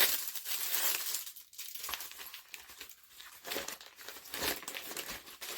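Plastic packaging crinkling and rustling in irregular crackles as a travel bag is unwrapped and handled, loudest at the start and again about four seconds in.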